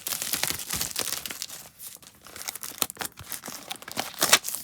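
Packaging of a camera's retail box being worked open by hand: irregular crinkling, scraping and rustling with small clicks, and a sharper crack about four seconds in.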